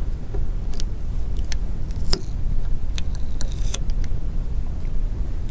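Scattered light clicks and ticks of a pry tool against a smartphone battery and its frame as the battery is levered out, over a steady low background hum.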